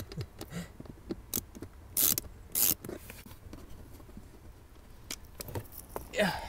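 A 10 mm socket turning out a bolt and a plastic cover under a car's dashboard being worked loose: scattered small clicks and knocks, with two short scraping rasps about two and two-and-a-half seconds in.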